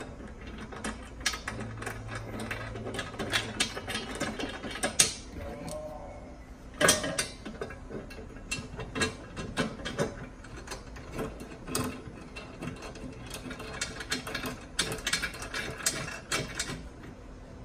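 Runs of small metallic clicks and taps as bolts are turned by hand into a sheet-metal rear differential skid plate on a Dacia Duster 4x4, with a louder knock about seven seconds in.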